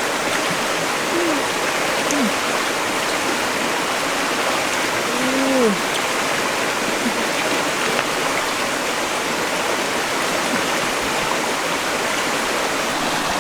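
Waterfall water rushing with a steady, even hiss.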